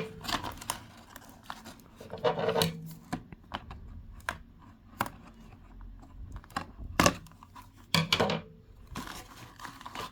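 Plastic doll packaging being cut and pulled apart to free a Barbie doll: rustling with sharp clicks and snips every second or so.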